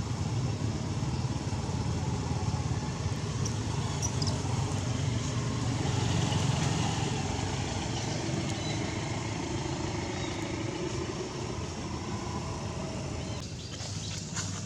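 A motor engine running steadily, dropping away near the end.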